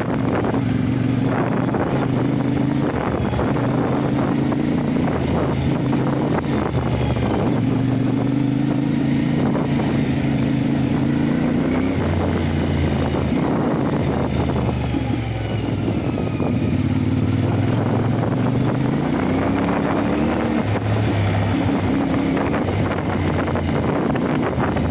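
Motorcycle engine running under way while riding, its note stepping up and down several times with throttle and gear changes, with wind buffeting the microphone.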